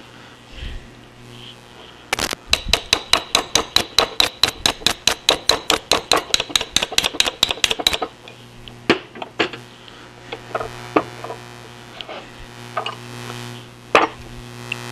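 Cast hand wheel of an Atlas 10F lathe apron being worked back and forth on its drive shaft, held fast by a key. It makes a rapid run of sharp metallic clacks, about six a second, for some six seconds, then a few scattered clicks.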